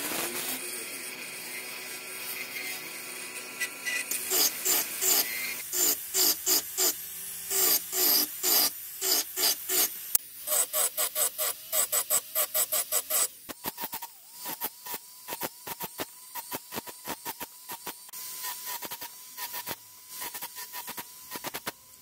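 Rotary micromotor handpiece spinning a small bur against a silver tube, texturing the metal in rapid repeated touches. The motor whine runs steady at first, then dips in pitch with each touch of the bur, about two or three touches a second.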